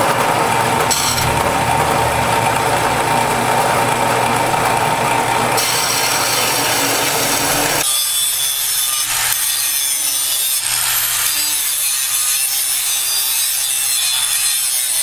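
Old Chinese-made bandsaw cutting plate stock for a transmission crossmember: a loud, steady grating of the blade through the metal. About eight seconds in, the sound abruptly changes and grows thinner.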